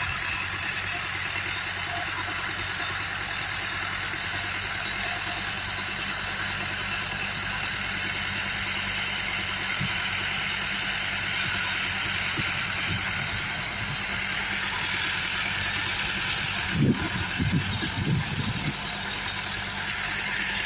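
Farm tractor engine running steadily, with a few loud low thumps about three-quarters of the way through.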